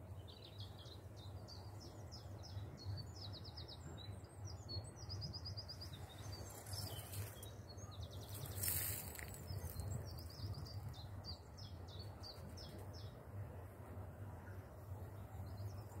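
Small songbirds singing outdoors: many quick chirps and rapid repeated trills overlapping throughout, over a steady low hum. Twice near the middle a brief rush of noise passes, like wind or rustling.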